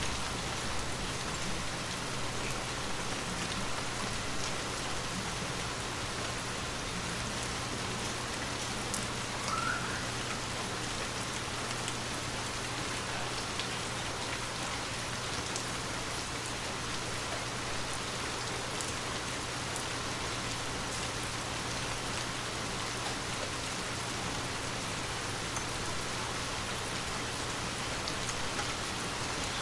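Steady rain falling on a window, an even hiss with scattered sharp raindrop ticks.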